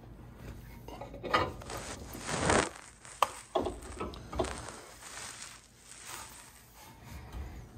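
Irregular metal clinks, knocks and scraping as the truck's front suspension parts are levered and worked into place with a long pry tool, with a few sharp clicks in the middle.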